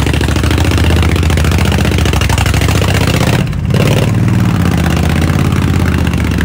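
Honda VTX 1300 cruiser's big V-twin running loud as the bike is ridden into the workshop. The engine note drops briefly about three and a half seconds in, then picks up again.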